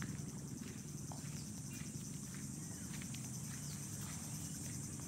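Insects trilling in a steady, high-pitched chorus, with a low background rumble and a few faint ticks.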